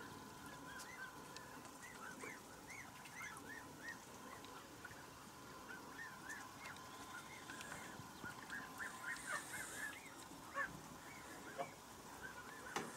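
Farmyard poultry calling: many short rising-and-falling calls in quick succession, busiest from about eight to ten seconds in, with a few sharp clicks near the end.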